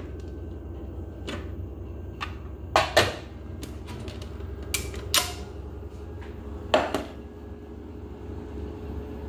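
Hard plastic clicks and clunks as a KitchenAid food processor's lid and work bowl are twisted free and lifted off the base, about half a dozen knocks with the loudest about three seconds in and near seven seconds, over a steady low hum.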